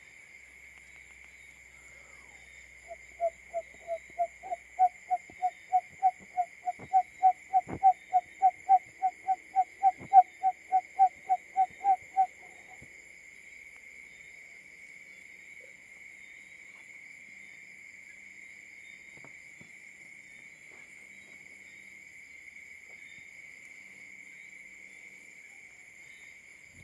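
Barred buttonquail call, played as a lure: a series of about thirty low hooting notes, roughly three a second, swelling in loudness for about nine seconds and then stopping. A steady high-pitched drone runs underneath throughout.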